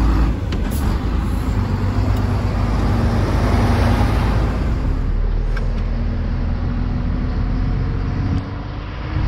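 Heavy truck on the move: engine running under road and tyre noise. The sound changes about five seconds in, then a low engine note rises slightly before dropping briefly near the end.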